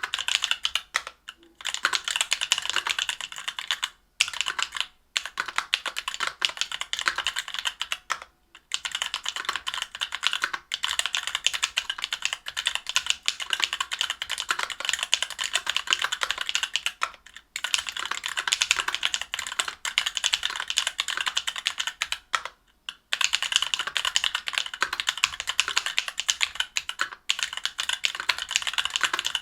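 Fast continuous typing on a mechanical keyboard with stock Alphakeys Blue Dusk Panda 62 g linear switches in an aluminium plate and GMK keycaps: dense rapid key clacks, broken by a few brief pauses.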